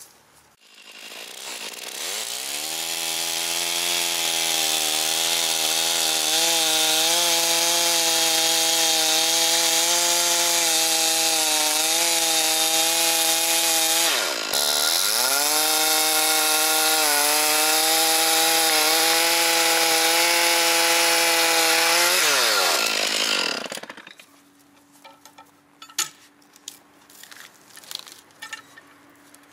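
Chainsaw revving up and running at high speed, its pitch wavering as it works through wood. About halfway the engine drops sharply and picks straight back up, then it winds down near the end. A few faint clicks follow.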